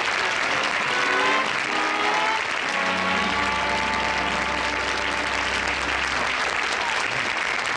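Studio audience applauding, with the show's band playing a short run of notes and then a held chord that stops about six and a half seconds in.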